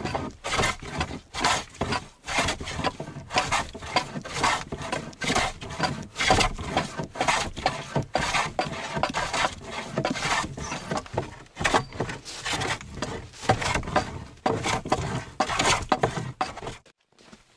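A hand woodworking tool worked along a wooden board in quick repeated scraping strokes, about two a second, as the board is fitted. The strokes stop shortly before the end.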